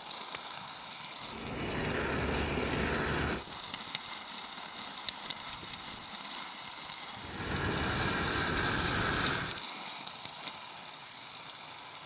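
Garden-railway model train running along its track, heard from a wagon it is pulling: steady rattling and clicking of wheels over the rails. There are two louder spells of rumble, about two seconds each, starting roughly a second in and again about seven seconds in.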